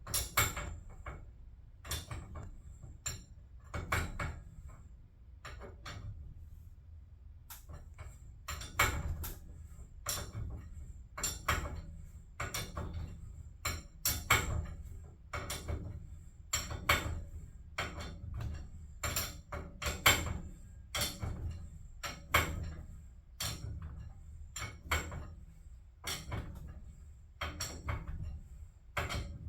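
Irregular knocks and clicks, about one or two a second, over a steady low hum.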